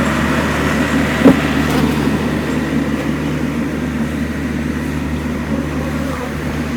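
A motor vehicle's engine idling with a steady low hum, and a single sharp knock about a second in.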